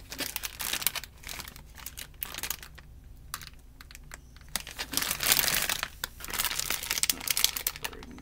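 Clear plastic lunchmeat package crinkling and crackling in irregular bursts as it is handled and lifted, loudest about five seconds in.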